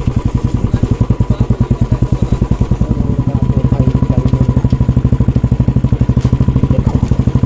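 Royal Enfield Bullet's single-cylinder four-stroke engine running at low revs with a rapid, even beat as the motorcycle is ridden slowly over a rough stony track.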